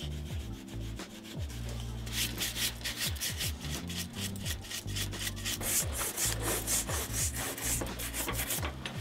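Horsehair brush buffing conditioned leather in quick, loud back-and-forth strokes, several a second, starting about two seconds in. Before that, a cloth rubs softly on the leather.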